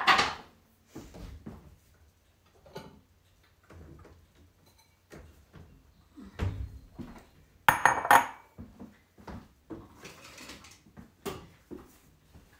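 Dishes and utensils being handled and set down while a kitchen counter is cleared: scattered knocks and clinks of bowls, a cutting board and tools, the loudest right at the start and about eight seconds in.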